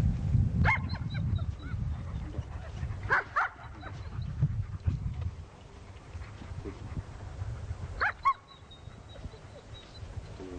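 A dog barking: one bark about a second in, two more a few seconds later and another pair near the end, over a steady low rumble.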